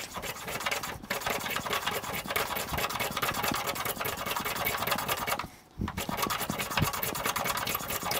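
Metal hand plane taking quick repeated strokes over a glued-up block of laminated wood strips, the blade shaving the surface flat to remove bandsaw marks. The shaving runs almost without a break, with a short pause about a second in and another about five and a half seconds in.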